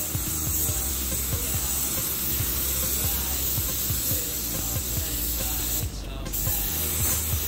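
Gravity-feed paint spray gun hissing steadily as it sprays paint onto a bus body panel. The spray breaks off briefly about six seconds in, then resumes.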